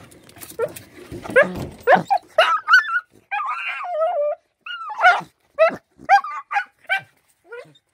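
A dog whining and yelping excitedly in greeting: a string of short, high, quivering yelps, with one longer wavering whine about three seconds in.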